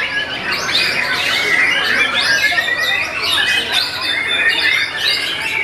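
Caged white-rumped shamas (murai batu) singing over one another: a dense, unbroken tangle of quick whistles, trills and chirps from several birds at once.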